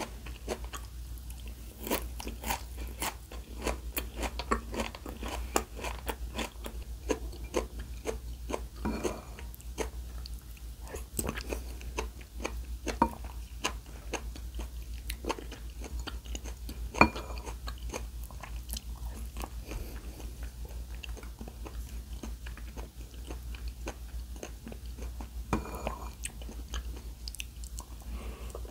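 A person biting, chewing and crunching food, with many short irregular crunches over a steady low hum.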